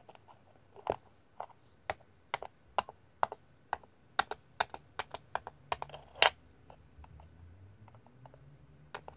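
Small hard plastic toy figures tapping and clicking on a wooden floor: a run of sharp taps about two a second, the loudest one about six seconds in, then only a few scattered taps.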